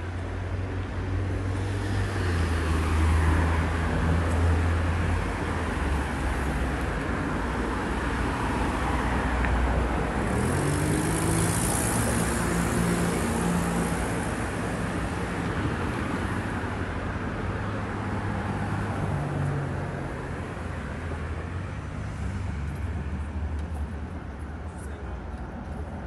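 City street traffic: vehicles passing through an intersection, with engines running and tyre noise on the road. About ten seconds in, an engine rises in pitch as a vehicle pulls away.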